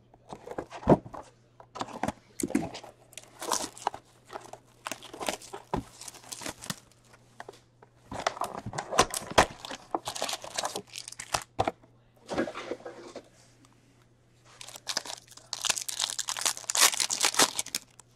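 A cardboard box of hockey cards being torn open, with repeated sharp tearing, scraping and rustling as packs are pulled out. Near the end a foil card pack crinkles and tears open in a longer, denser stretch.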